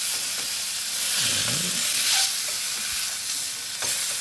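Chicken breasts sizzling in oil in a frying pan as they are turned with tongs and a spatula. The sizzle flares up about a second in, and a utensil clicks against the pan near the end.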